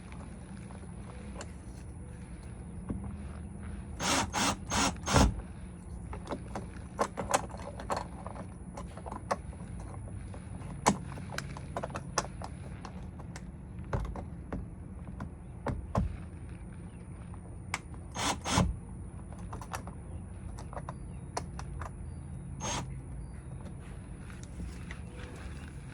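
Hand-tool and hardware handling: scattered clicks, taps and light scrapes of doorbell installation work, with no power drill running. A quick run of four sharp knocks comes about four seconds in, and three more about eighteen seconds in.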